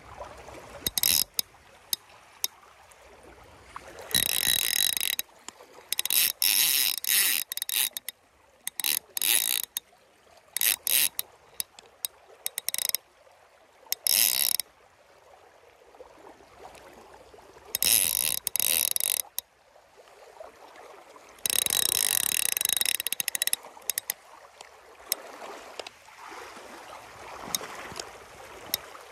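A fly reel's click-and-pawl ratchet buzzing in repeated bursts as line runs through it. The longest bursts last about one and a half to two seconds, about four, six, eighteen and twenty-two seconds in.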